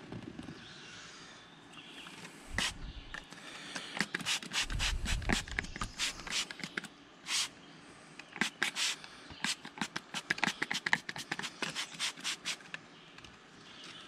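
Plastic trigger spray bottle squirting soapy water onto a tire: many short hissing spritzes, a few at first, then several a second in a quick run near the end.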